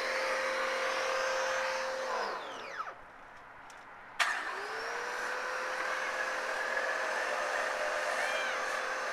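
Small electric pressure washer running with water spraying. About two seconds in the trigger is released and the motor winds down to a stop. About four seconds in it starts again with a sudden click, spins back up to a steady whine and keeps spraying.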